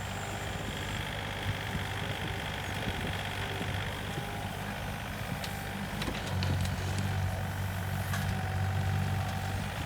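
Komatsu PC28UU-2 mini excavator's diesel engine running steadily while digging, with a thin whine above it; the engine gets louder about six seconds in, and a few light clanks come just before that and again near eight seconds.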